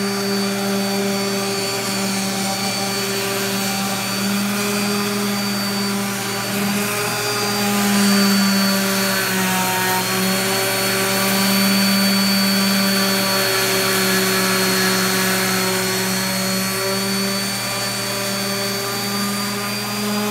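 Electric random orbital sander running steadily on a wooden live-edge slab, with a thin high whine over its motor hum; the pitch dips slightly now and then as it is pressed into the wood.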